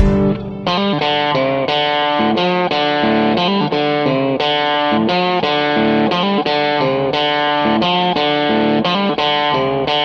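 Background music: an electric guitar with effects picking a quick run of notes.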